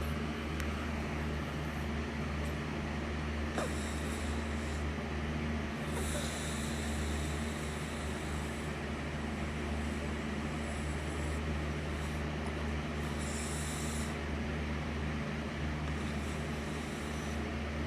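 A sleeping person snoring, over a steady low hum.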